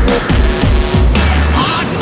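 Loud music with a heavy bass beat.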